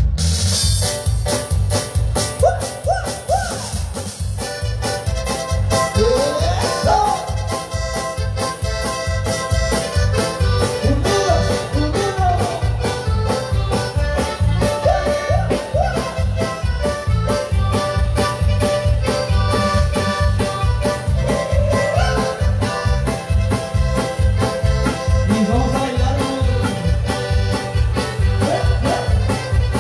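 Live cumbia band playing a ranchera: a keyboard melody over a steady beat of bass and timbales percussion, starting right at the outset.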